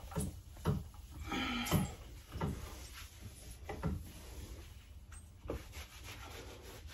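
A cloth towel rubbing along a metal dance pole, wiping it clean. It makes short wiping strokes roughly every half second for about four seconds, one of them drawn out longer, then goes fainter.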